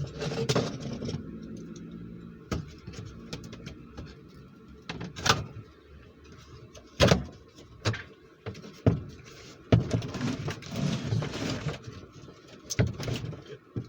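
Mini lathe's shipping box being opened and its packaging handled: a series of sharp knocks and taps, with stretches of rustling and scraping near the start and again about two-thirds of the way through.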